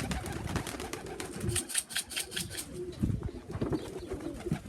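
Pigeons cooing, in short low repeated notes, with a run of sharp clicks about halfway through.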